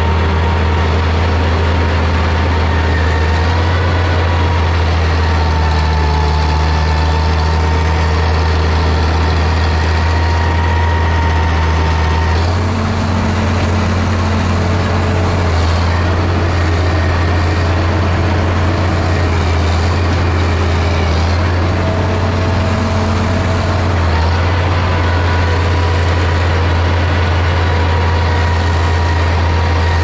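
Small crawler bulldozer's diesel engine running steadily while the machine is driven; its note shifts a few times, about twelve seconds in and again later.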